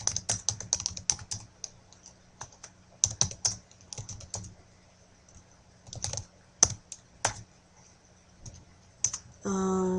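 Computer keyboard typing: short bursts of keystrokes, one burst per word, with pauses of a second or more between them.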